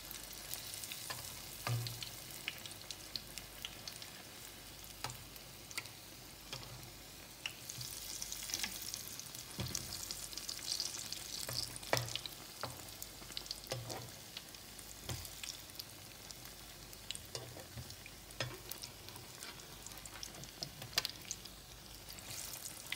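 Besan-battered vadas deep-frying in a kadai of hot oil: a steady high sizzle with scattered sharp pops and clicks as a spatula turns them in the pan.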